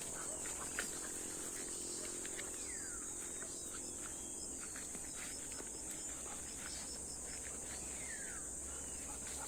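Steady high-pitched insect chorus, crickets or cicadas, with two short falling calls, one about three seconds in and one near the end.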